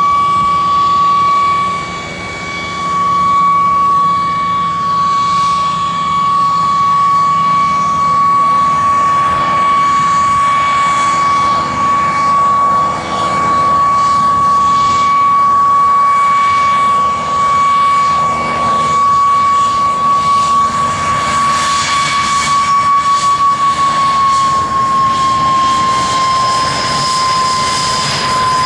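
Aircraft engine running with a steady high whine over a rushing noise, the whine dropping slightly in pitch near the end.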